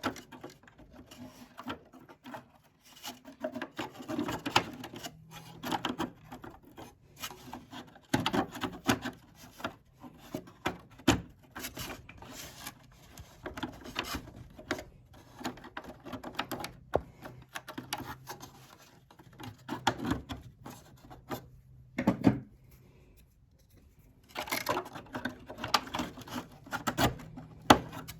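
Hand tools working a small part on a workbench: irregular clicks, taps and scraping, in bursts with short pauses, and a sharper knock a little before a brief lull near the end.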